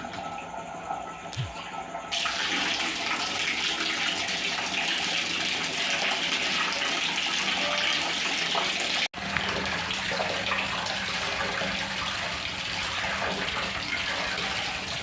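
Water running in a steady stream, starting about two seconds in, with a momentary break a little past the middle.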